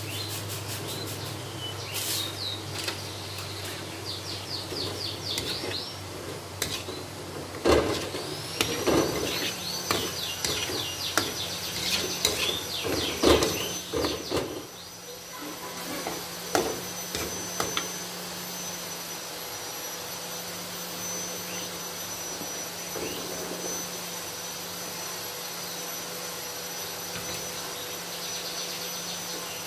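A metal ladle stirring and scraping sauce in an aluminium wok, with a run of knocks and scrapes for several seconds in the middle. Behind it there is a steady high whine, and short bursts of high chirping come early on and near the middle.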